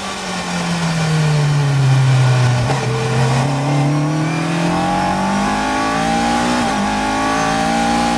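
Caterham C400 race car's engine heard from the open cockpit, falling in pitch as the car brakes into a corner, then revving steadily higher under hard acceleration out of it, with one brief dip in pitch about two-thirds of the way in.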